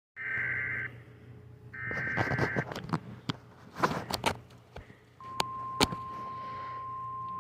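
Two buzzy bursts of EAS SAME header data from a weather radio, then several sharp clicks, then the steady 1050 Hz NOAA Weather Radio warning alarm tone starting about five seconds in. The tones signal a new severe thunderstorm warning.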